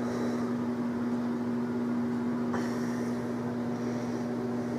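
Steady low electrical hum on one unchanging pitch, with a faint click about two and a half seconds in.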